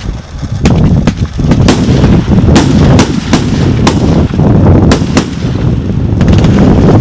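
A 131-shot firework cake with 25, 30 and 50 mm calibre tubes, firing in sequence: sharp cracks come about twice a second over an unbroken rumble of launches and bursts.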